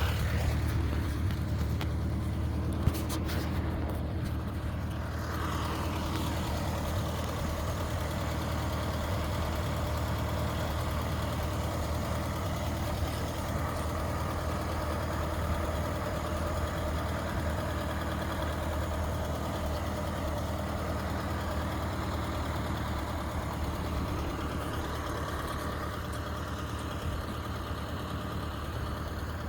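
Ford Model A's four-cylinder flathead engine running at a steady idle.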